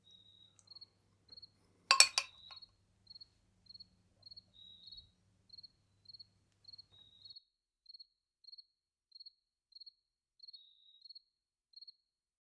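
Crickets chirping: a short high chirp repeating evenly about one and a half times a second, with an occasional longer, slightly lower trill. A single sharp clink rings out about two seconds in.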